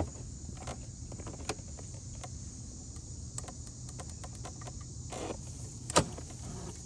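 Knocks and clacks from a Honda Spree scooter's kick-start lever being kicked, the loudest about six seconds in. The engine only turns a little and stops: it is hydrolocked, its cylinder flooded with fuel.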